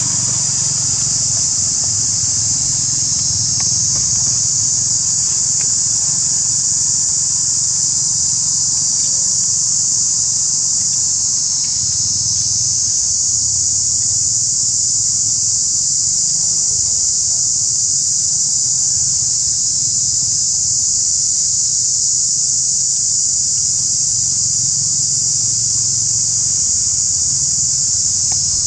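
A loud, steady, high-pitched chorus of insects droning without a break, with a low rumble underneath.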